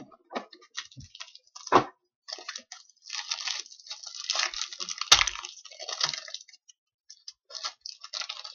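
A pack of trading cards being torn open and handled: the wrapper crinkling and crackling in stretches, with two sharp knocks about two and five seconds in.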